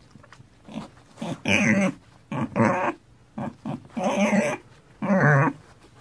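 Pig calls: a run of short, pitched grunting squeals, each under a second, with brief pauses between them.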